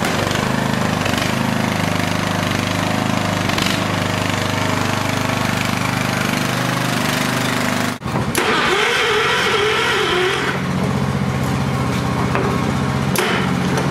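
Lawn tractor engine running steadily. About eight seconds in the sound cuts off abruptly and an engine runs on again, with a wavering higher tone over it for a couple of seconds.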